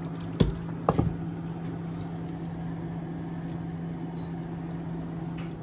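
Kitchen background noise: a steady low hum under an even haze, with sharp knocks about half a second and a second in.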